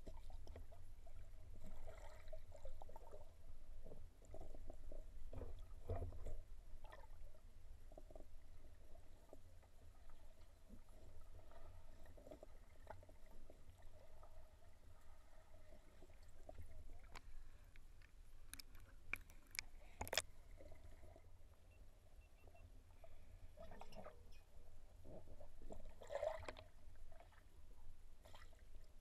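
Underwater sound picked up by a submerged camera: a steady low rumble with gurgling water and scattered faint clicks and knocks, with a few sharper clicks a little past the middle.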